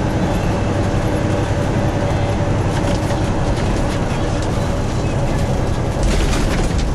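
Inside a semi-truck cab at highway speed: steady engine drone and road noise, with a faint constant hum running through it. A brief louder rush of noise comes about six seconds in.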